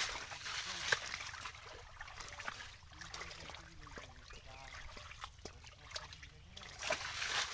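Shallow water trickling and lightly splashing as it is disturbed by hand fishing in the mud and water hyacinth, with scattered small clicks and knocks.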